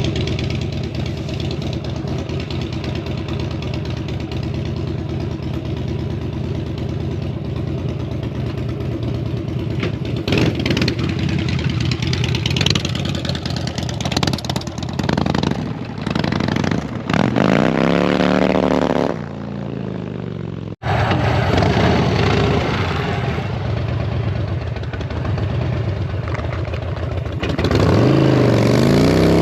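Harley-Davidson V-twin motorcycle engine running, revved up and down a little past halfway and again near the end.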